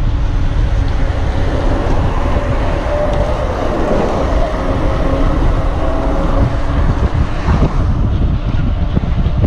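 Wind buffeting the microphone of a bike-mounted camera as a mountain bike coasts down a paved road, with a steady low rumble underneath. A faint hum rises through the middle and fades before the end.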